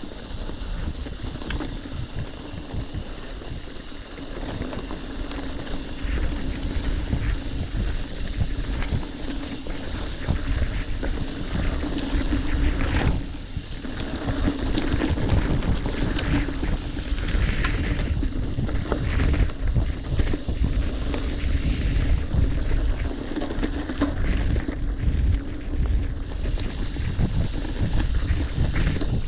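Mountain bike riding down a dirt trail: the tyres rumble over the ground and the bike rattles and knocks over bumps, under heavy wind noise on the action camera's microphone. A quieter dip about thirteen seconds in.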